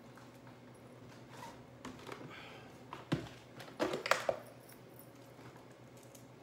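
Plastic Cool Whip tub and lid being handled: a few light clicks and taps, with a quick cluster of louder ones about four seconds in.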